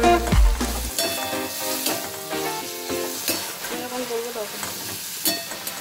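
Onions, tomatoes and green chillies sizzling in hot oil in a metal kadai, with a spatula scraping and stirring them through the pan in repeated strokes. Background music with a beat cuts off about a second in.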